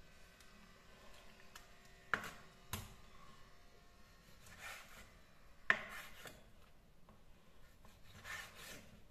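Kitchen knife slicing squid into rings on a wooden cutting board: faint slicing strokes, with a few sharp knocks on the board about two seconds in, again shortly after, and once more near the middle.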